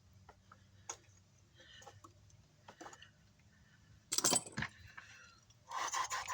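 Small metal hand tools clicking and clinking against the amplifier's metal chassis and parts while stuck fasteners are worked loose, with a louder metallic clatter about four seconds in and another rattling, ringing spell near the end.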